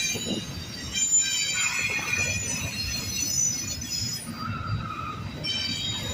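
Freight train rolling past with its steel wheels squealing on the rail: several high, shifting squeal tones over a steady low rumble. A lower squeal comes in briefly about two-thirds of the way through.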